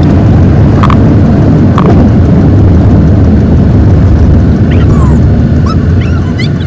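Car on the move, heard from inside: a loud, steady low rumble of road and wind noise, with a few faint short chirps near the end.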